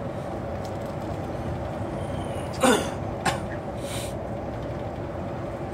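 Steady engine and road noise heard from inside a shuttle bus running on a highway. About two and a half seconds in, a person clears their throat once, loudly and briefly, followed by a short click and, a second later, a brief hiss.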